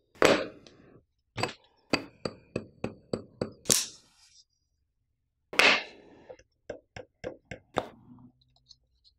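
Handling a round filter case and a folding pocket knife on a wooden table: a run of sharp clicks and knocks, spaced about a third of a second apart, broken by a few louder hits. There is a short pause midway.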